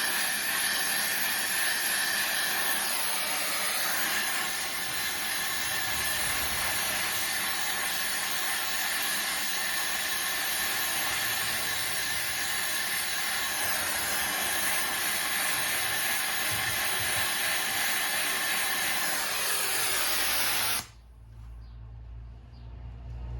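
Gas torch flame hissing steadily while it heats a rusted, seized ball joint nut to free it; the torch is shut off suddenly about 21 seconds in.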